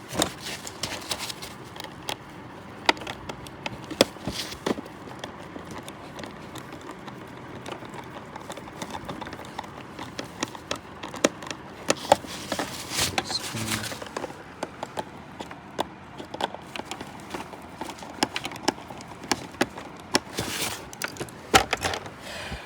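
Small irregular clicks and knocks of hands working a luggage combination lock's casing and parts, busier about halfway through and again near the end.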